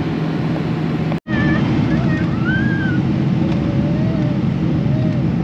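Steady roar of a Boeing 777-300ER's cabin noise in flight, engines and airflow, with faint voices talking in the background. The sound cuts out abruptly for an instant about a second in.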